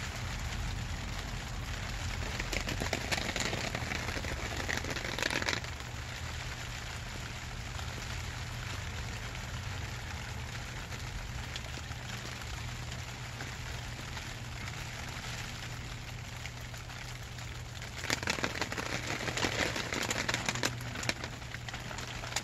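Rain pattering on a clear plastic sheet shelter, a steady fine crackle that grows louder and denser for a few seconds twice, about two seconds in and again near the end.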